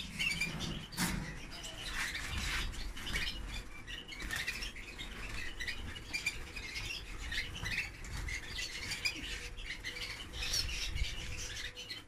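Red canaries in a wire cage giving many short chirping calls and fluttering their wings, unsettled after being moved in from the flight cage. A single sharp knock sounds about a second in.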